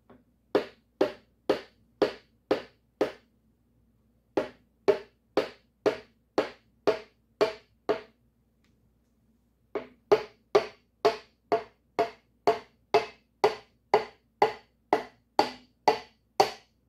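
Wooden hammer handle tapping on a piston top in a small-block Chevy V8 cylinder bore, driving the piston and connecting rod down onto the crankshaft journal. Sharp wooden knocks, about two a second, in three runs with short pauses between.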